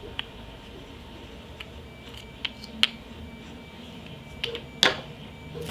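Small plastic accessories being handled: about half a dozen short sharp clicks and taps, the two loudest about three and five seconds in.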